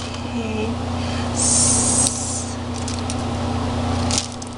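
A steady low mechanical hum in the room, with a short hiss about a second and a half in and a few light clicks near the end.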